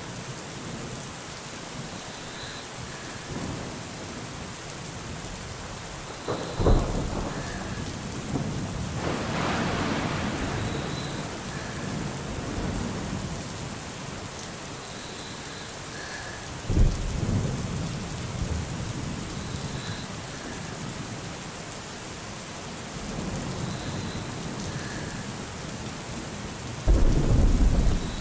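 Thunderstorm: steady rain with several claps of thunder, one about a quarter of the way in, a longer rolling rumble soon after, another past the middle, and a loud clap near the end.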